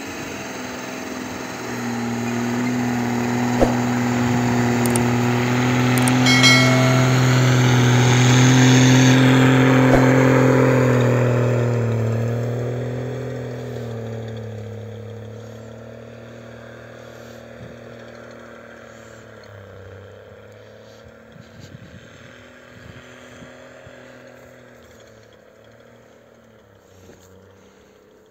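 Nissan Patrol Y61's swapped-in BMW M57 inline-six turbodiesel engine running as the vehicle drives through snow. The engine gets louder until about eight to ten seconds in, then fades steadily as the vehicle drives away. A few sharp clicks are heard along the way.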